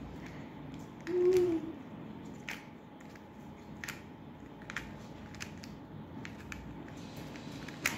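Plastic Dino-cube-type twisty puzzle being scrambled by hand, its turning pieces making light clicks about once a second. About a second in there is a brief, louder low hum.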